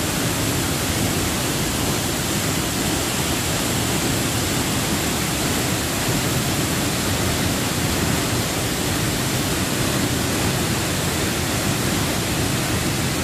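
Waterfall pouring into a pool: a steady, even rush of falling water with no break or change.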